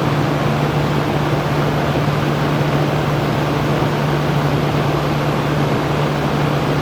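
Electric fan running steadily: an even rush of air with a low, constant motor hum underneath.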